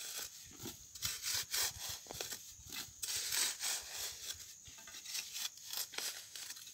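A long metal digging bar with a flat blade stabbing and scraping into hard, dry soil, with loose earth crumbling away: irregular scraping strokes with a few dull thumps.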